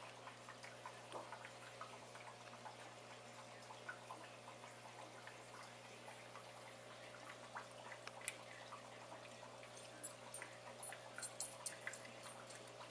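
Faint aquarium water trickling and dripping, over a steady low hum, with scattered small clicks and ticks that come more often near the end.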